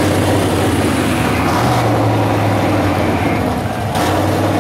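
Engine of a lifted off-road 4x4 running at a steady speed.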